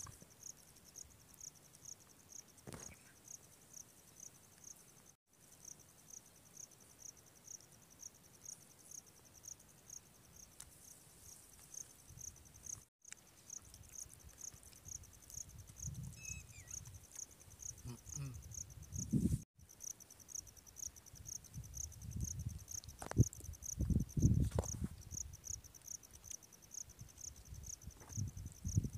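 Crickets chirping in a steady, evenly pulsed high trill throughout. In the second half, low bumps and rustles, loudest about two-thirds of the way in, come and go underneath.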